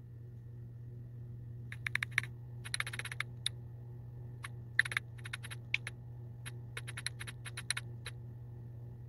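Typing on a smartphone's on-screen keyboard: short, sharp key clicks in quick irregular clusters, starting about two seconds in, over a steady low hum.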